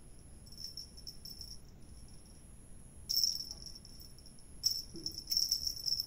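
Small bell on a dangling cat wand toy jingling in short bursts as the toy is jiggled and batted, the loudest bursts about three seconds in and near the end.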